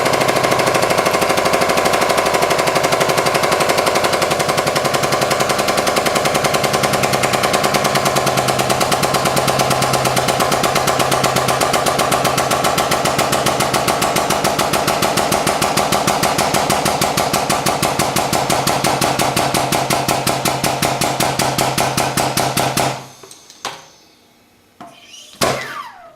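Hydraulic press power unit running with a loud, rapid, even pulsing as it drives the ram down. It cuts off suddenly near the end, followed by a few clicks and knocks.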